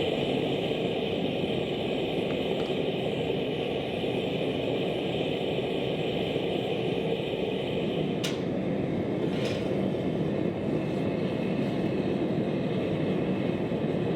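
Blacksmith's forge running with a steady, even rushing noise while it heats square bar stock. Two faint clicks come a little past the middle.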